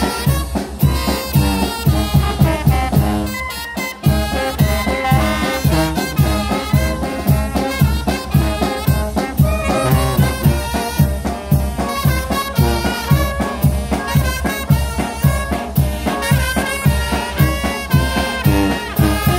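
Traditional Oaxacan brass band (banda de viento) playing: trumpets, trombones and saxophones carry the melody over a steady beat of low pulses, with a brief drop near four seconds in.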